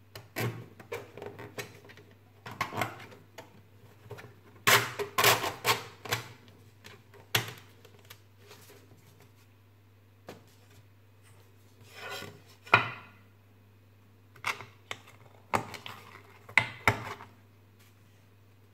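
Hard 3D-printed ABS plastic case parts being handled and fitted together: scattered scraping and rubbing with sharp clicks and knocks, the sharpest knock about two-thirds of the way through.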